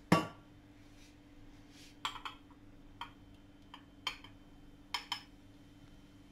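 Stainless steel milk pitcher knocking and clinking against a ceramic mug while frothed milk is poured into coffee: one loud knock right at the start, then a run of lighter clinks in the second half.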